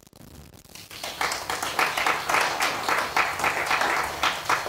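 Small audience clapping. It starts about a second in, with separate claps distinct in a quick, uneven patter.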